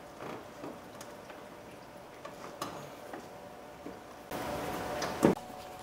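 Light clicks and scrapes of a rubber coolant hose being forced by hand back onto the plastic overflow bottle's neck, with a stretch of rubbing about four seconds in and a sharper knock just after.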